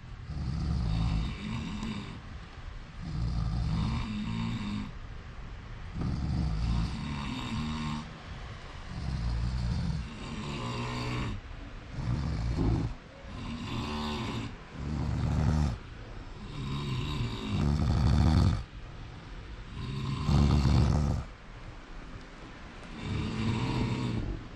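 Snoring: a long run of snores, one every second or two, some louder than others.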